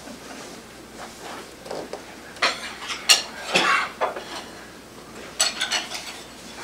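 Clattering and knocking as the sled board and loose parts are handled and shifted on the table saw's top, in a cluster of rattles about two and a half seconds in and a shorter one near the end.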